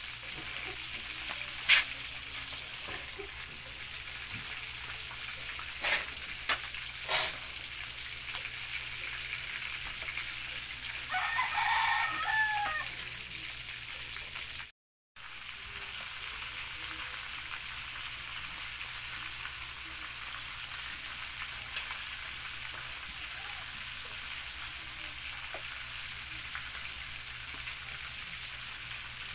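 Battered chicken bones deep-frying in hot oil in a wok: a steady sizzle, with a few sharp knocks of metal tongs against the pan in the first seven seconds. A rooster crows once near the middle, and the sound cuts out for a moment just after.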